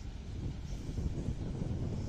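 Low rumble of a distant train moving through the station tracks, with wind buffeting the microphone.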